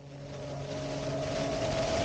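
Zivko Edge 540 aerobatic plane's six-cylinder piston engine and propeller running, growing steadily louder with its pitch rising slightly as it approaches.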